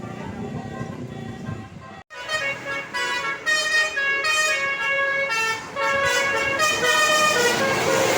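Tour bus 'telolet' multi-tone Basuri horn playing a quick melody of stepping notes, starting suddenly about two seconds in after a brief cut. Before it comes a softer music-like sound.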